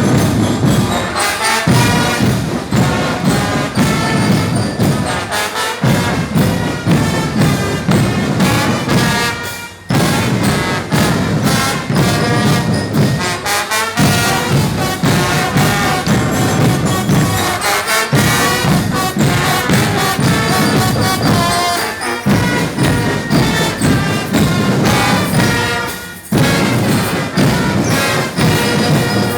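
Brass band music with drums, played in phrases that break off briefly about every four seconds.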